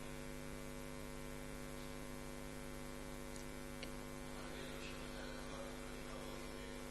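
Steady electrical mains hum, a low buzz with many evenly spaced overtones, with a couple of faint clicks near the middle.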